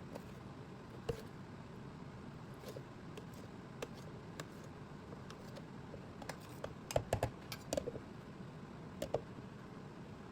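Scattered light clicks and taps, with a quick run of louder ones a little past the middle, over a steady background hiss.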